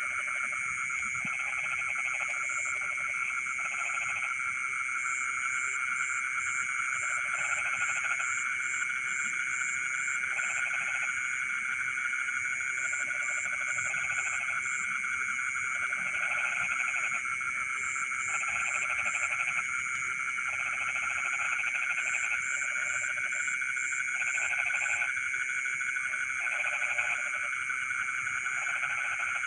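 Frogs calling in a night-time chorus: bouts of lower croaking about a second long recur every second or two over a steady, dense high trilling, while series of rapid high pips come and go above.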